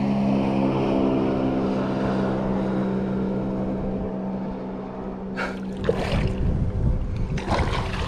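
Boat motor humming steadily, slowly fading. From about halfway on come splashing and knocks as a hooked bass is brought to the landing net and scooped from the water.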